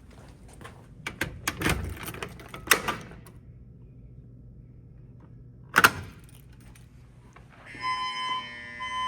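A few clicks and knocks, then a single sharp snap about six seconds in, typical of a fire alarm pull station being pulled. Near the end a fire alarm starts sounding with a buzzing tone.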